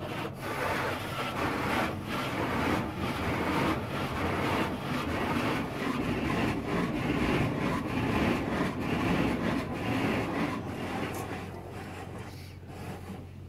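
Automatic car wash spraying water and foam against the car, a steady rushing noise heard from inside the cabin, dying down near the end.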